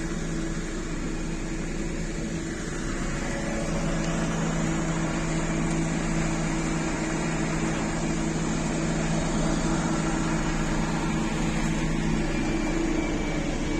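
Steady mechanical hum of a city transit vehicle, with low steady tones in it; the lowest tone grows stronger about four seconds in and drops away near the end.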